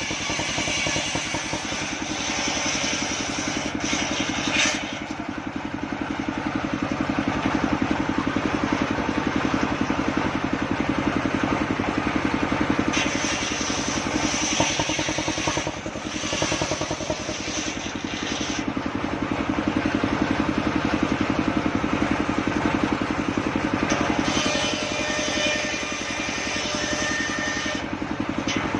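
Engine of a homemade circular sawmill running steadily, with stretches of higher-pitched saw noise that come and go as the blade cuts sengon timber.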